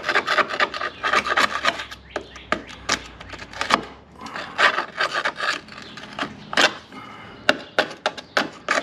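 A hand tool scraping and picking at rusted sheet metal in irregular strokes, with frequent sharp clicks and taps, checking how deep the rust goes.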